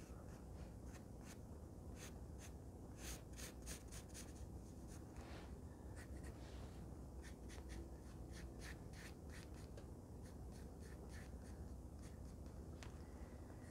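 Graphite pencil sketching lines on a notebook page: faint, quick scratching strokes in irregular runs.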